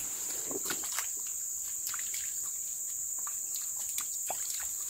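Steady high-pitched buzz of forest insects, with light splashes and trickles of hands being rinsed in shallow river water.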